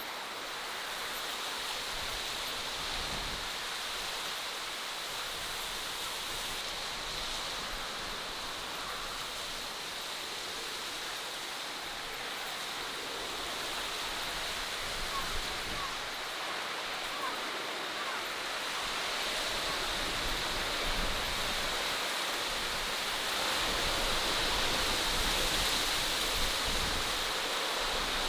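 Steady rushing outdoor nature ambience, an even noise with a faint high steady note, growing a little louder in the last third.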